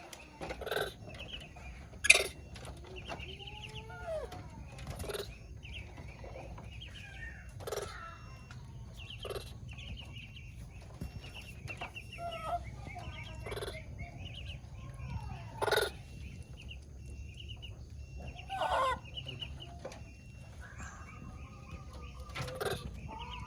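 Baby monkey calling for its mother with repeated short whistled calls that glide up and down in pitch, among many short, rapid high chirps and a few sharp knocks, the loudest about two seconds in.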